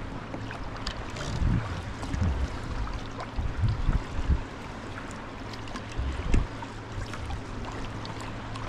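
Sea kayak under way with a Greenland paddle: water splashing and dripping off the blades and lapping at the hull, with many small splash ticks. Several irregular low thumps stand out.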